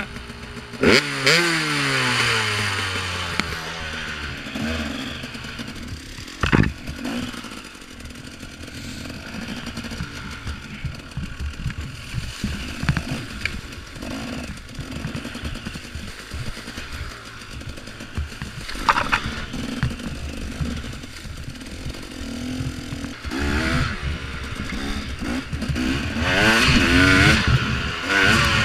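A 2014 KTM 250 XC-W two-stroke dirt bike engine revving up and down under the rider, its revs dropping steeply about a second in and rising and falling hardest near the end. Sharp knocks come at about six and a half seconds and again near nineteen seconds.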